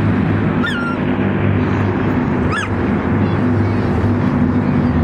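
Rolls-Royce Merlin piston engines of Second World War warbirds (an Avro Lancaster, a Spitfire and a Hurricane) droning steadily overhead. Two short high calls cut through, about a second in and again near three seconds.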